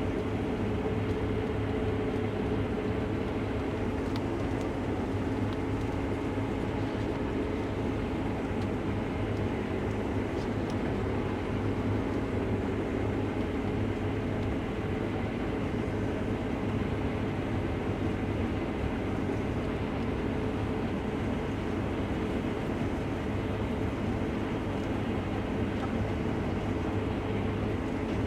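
Case IH combine running steadily while harvesting wheat, heard from the cab: a constant engine and threshing-machinery drone with a few steady hum tones, unchanging throughout.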